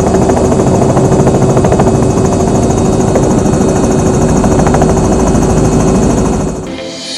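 Robinson R66 turbine helicopter running, with a rapid, even rotor chop and a steady tone; the sound drops away near the end.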